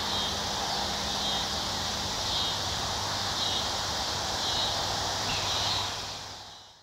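Steady chorus of summer insects in the field, with a soft chirp repeating about once a second, fading out near the end.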